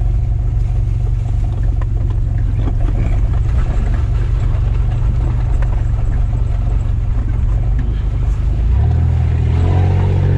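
Off-road 4x4's engine running steadily under load as it drives over a rough forest trail, heard from inside the cab, with scattered knocks and rattles from the bodywork. Near the end the engine note grows stronger and more clearly pitched.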